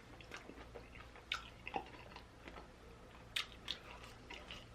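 A person chewing food close to the microphone: faint mouth sounds with irregular small clicks and smacks.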